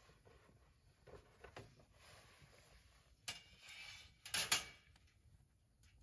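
Handling sounds at a small wood fire: scattered light clicks and knocks, a sharp click just after three seconds, then a louder short metal clatter and scrape around four and a half seconds as a grill grate is set onto a steel fire pit.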